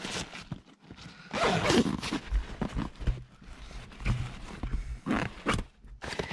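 A nylon backpack being stuffed and shoved around on a car seat: fabric rustling and scuffing in irregular bursts, with one louder sliding sound falling in pitch about a second and a half in.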